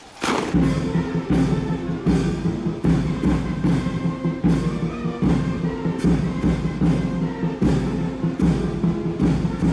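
Brass band music starts about a quarter second in: a march played on sustained low brass notes over a steady, regular drum beat.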